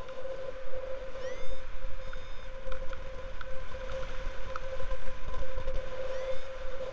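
Wind rushing over the camera microphone of a paraglider in flight, uneven and gusty. Over it sits a steady mid-pitched tone, with two short rising chirps, one about a second in and one near the end.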